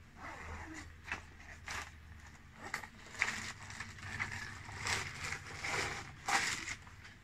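Rustling and crinkling of a tripod's carry bag and its plastic wrapping as the tripod is pulled out by hand: irregular scraping rustles with sharp crackles every second or so.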